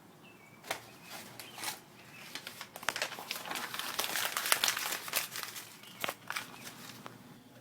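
Paper crinkling and rustling as a paper sign is pulled down and handled. It comes as an irregular run of crackles, loudest about midway.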